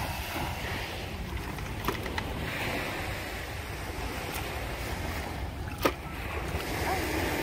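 Small waves washing on a sandy beach, with wind buffeting the microphone. A few light clicks are heard, and one sharper knock about six seconds in.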